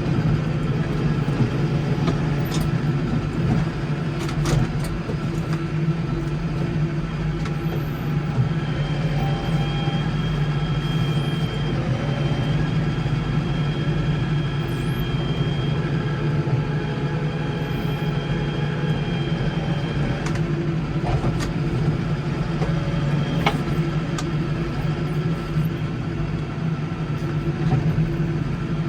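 Case 115U garden tractor's engine running steadily under snowplowing work. A thin high whine joins for about ten seconds midway, with a few scattered clicks.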